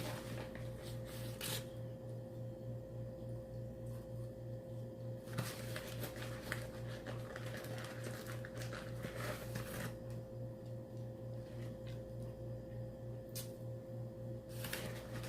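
Close-up eating sounds: chewing fries and fried food, with handling of the food, in short crackly spells, most about five seconds in and again near the end. A steady low pulsing hum runs underneath.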